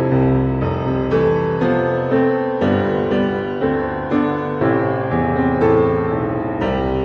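Background music: a piano playing a gentle melody over chords, a new note or chord about every half second.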